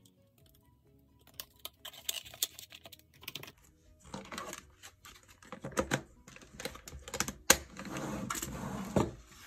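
Clicking and rattling of a small plastic storage box full of cash envelopes being handled on a table, its clear plastic lid fitted on with one sharp snap about three-quarters of the way through, then a short scrape as the box is slid across the tabletop.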